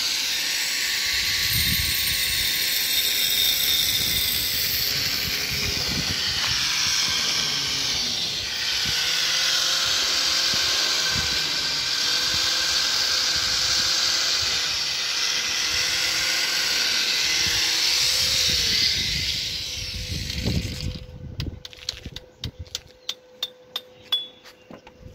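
Steady, loud hissing noise of metalwork on a steel railing, with a faint whining tone under it, giving way about twenty seconds in to scattered sharp clicks and taps.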